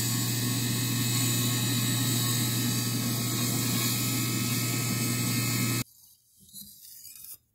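Bench grinder-type wheel spinning with the santoku's edge held against it for sharpening: a steady motor hum under a high hiss from the wheel on the steel. The hum cuts off suddenly about six seconds in, followed by a few faint strokes of the blade on a leather strop.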